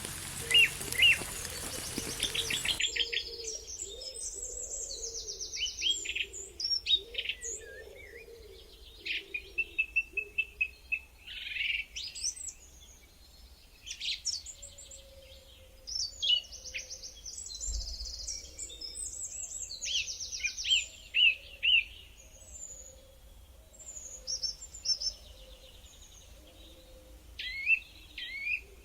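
Rain falling, cut off abruptly about three seconds in, then a chorus of songbirds chirping and trilling, with many short calls overlapping.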